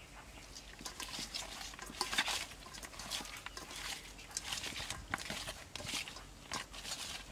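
A hand mixing raw frog pieces with seasoning powder in a metal bowl: irregular squishing of the wet meat against the bowl, starting about a second in.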